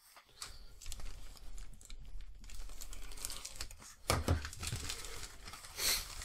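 Clear plastic kit bag crinkling and rustling as a plastic model sprue is handled and slid out of it, with louder rustles about four seconds in and again near six seconds.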